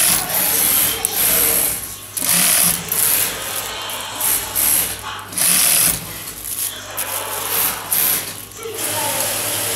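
High-head post-bed wig sewing machine stitching in several short bursts of about a second each, stopping between them, with a steady low hum underneath.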